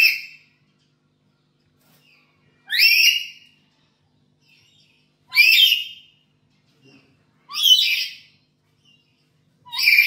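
Black-capped lory calling, with short, harsh shrieks repeated about every two and a half seconds, several sweeping upward in pitch.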